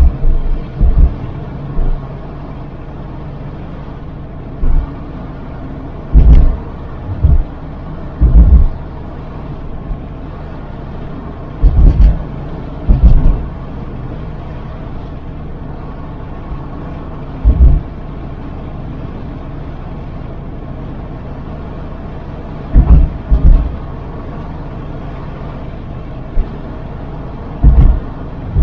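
Car driving: a steady low road and engine hum, broken every few seconds by about ten short, loud low thumps.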